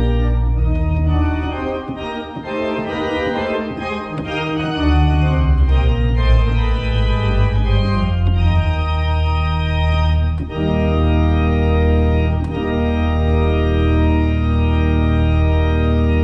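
Church organ playing full chords over a deep sustained pedal bass, with moving inner parts in the first half, then long held chords over the last several seconds.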